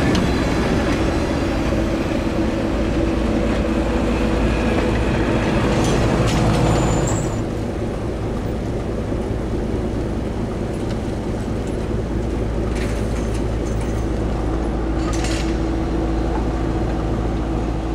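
Train running along the line: a steady mechanical drone with low rumble that eases a little about seven seconds in.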